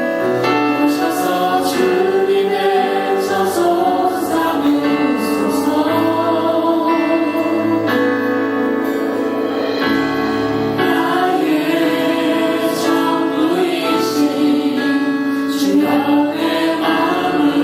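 Choral singing with musical accompaniment, steady and sustained, in the manner of a church hymn.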